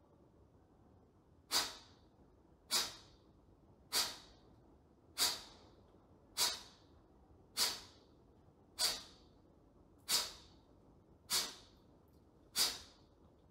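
Kapalabhati breathing: short, forceful exhalations puffed out through the nose, ten in an even rhythm about one every 1.2 seconds, starting about a second and a half in.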